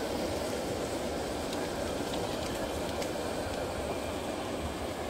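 Steady rumbling hiss of a gas camping burner firing under a large cast-iron Dutch oven, with water simmering and bubbling on the hot lid.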